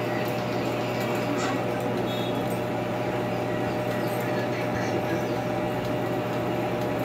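Metal lathe running under power with a steady hum during a thread-cutting pass, the tool fed into the turning workpiece.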